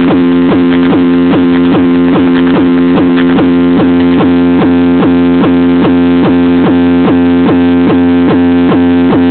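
Loud electronic music played through a car sound system, a steady low drone under a pulsing beat about three times a second.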